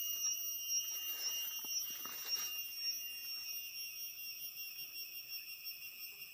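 Insects chirring in steady high-pitched tones, one of them pulsing about twice a second. Leaves rustle in the first couple of seconds as someone moves through the plants.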